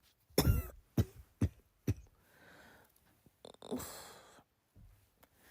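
A woman coughing as if ill: a short fit of four coughs in the first two seconds, the first one voiced. It is followed by two long, breathy exhales, like sighs.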